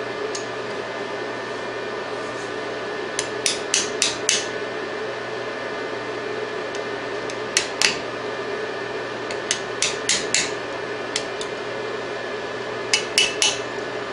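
Small hammer tapping a handmade half-moon steel punch to drive a tiny brass wire rivet down into place, in short runs of light, sharp metallic taps separated by pauses of a second or more.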